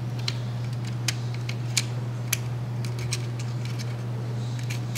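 Metal tweezers clicking lightly against the plastic steering wheel of a model car as it is turned: a handful of small, irregular clicks over a steady low hum.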